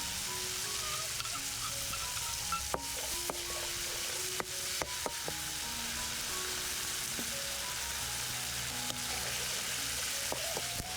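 Food sizzling in a hot pan during a stir-fry, with a utensil clicking against the pan several times as it is stirred.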